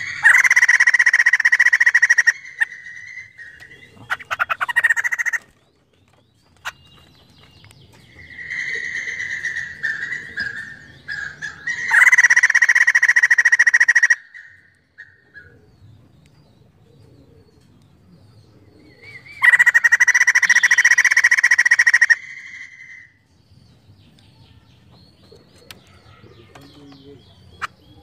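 White-crested laughingthrush calling in three loud bouts of rapid chattering, each about two seconds long: at the start, about twelve seconds in, and about twenty seconds in. Softer, shorter calls come in between.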